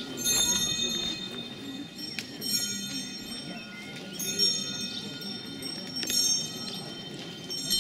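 A bell ringing in a slow, even swing, a strike about every two seconds, each stroke ringing on.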